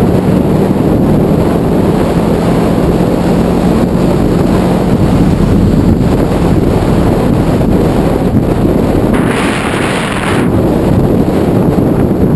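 Steady wind noise buffeting the microphone on a moving Honda ST1100 Pan European motorcycle, with the bike's V4 engine running as a low hum underneath. About nine seconds in, a louder hiss rises for about a second.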